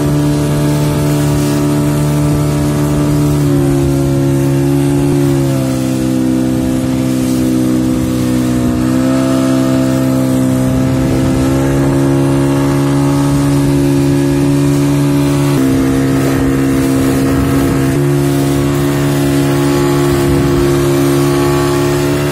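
Small motorboat's engine running steadily at speed, a loud drone whose pitch steps up or down slightly a few times, over the hiss of water rushing past the hull.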